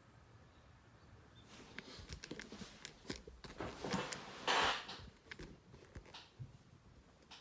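Handling noise: a few seconds of crackly rustling and light clicks, with one louder scraping rub a little past the middle.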